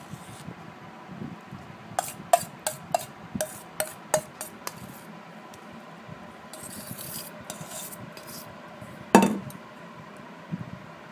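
Steel spoon clinking against a steel bowl while scooping out a sandwich filling: a quick run of light clinks, then soft scraping as the paste is spread over bread, and one louder clink near the end.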